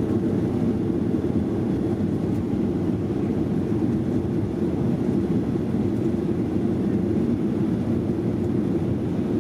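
Steady low rumble inside the passenger cabin of a Boeing 737-700: its CFM56-7B engines running together with the rush of air around the airframe.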